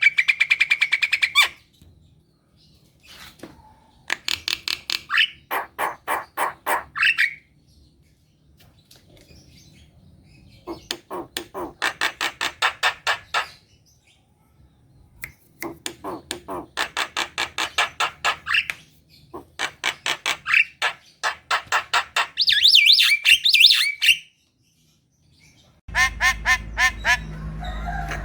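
Javan myna (jalak kebo) singing in full voice. It gives repeated bouts of fast, harsh, rattling notes, each a few seconds long, separated by short pauses. A few whistled notes come near the end.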